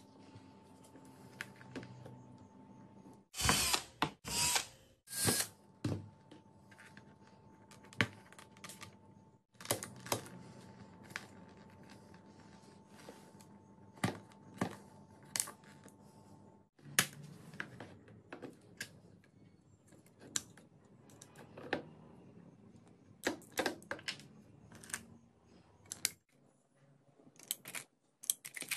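A pointed tool scraping and picking at PVC pipe, with scattered clicks and knocks as the pipe is handled; a short run of loud scraping strokes comes about three to five seconds in.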